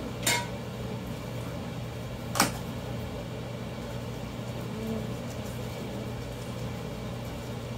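A steady low hum, with two sharp clicks, one just after the start and one about two and a half seconds in.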